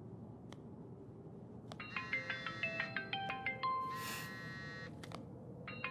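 Mobile phone ringtone for an incoming call: a short electronic melody of stepping notes that starts about two seconds in and begins again near the end, with a few faint clicks before it.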